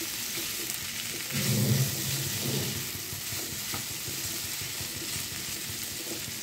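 Soya chunks and potato cubes sizzling in a non-stick kadai as a spatula stirs and scrapes them through the spice paste, briefly louder about a second and a half in. This is the masala being sautéed (kosha) before water goes in.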